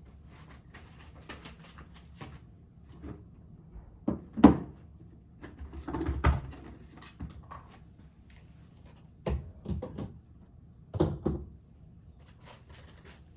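Irregular knocks and bumps of things being handled and set down, like cupboard doors and drawers opening and closing in a small room. The loudest knock comes about four and a half seconds in.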